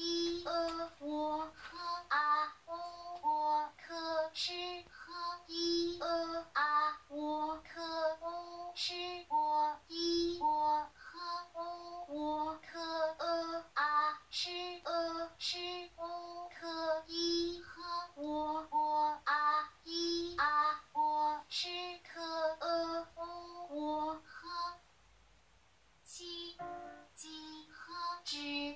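Auditory BCI speller stimuli: short voiced syllables, one PinYin sound at a time, played in quick succession from loudspeakers around the listener, about two or three a second, at much the same pitch but with changing vowel sounds. About 25 seconds in they stop briefly, then start again.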